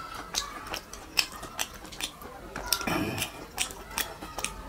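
Close-up mouth sounds of a person eating by hand: chewing, with irregular wet lip-smacking clicks, one sharper click about a second in and a short fuller mouth noise around three seconds.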